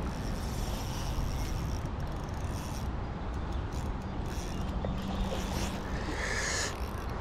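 Ultralight spinning reel ratcheting during the fight with a hooked barbel, over a steady low rumble.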